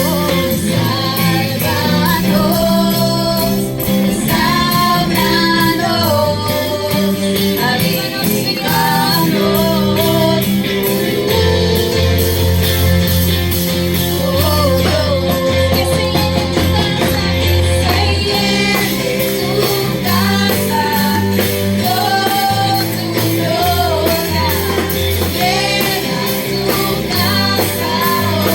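Worship song: a sung melody over a band with guitar and a bass line changing notes every second or two.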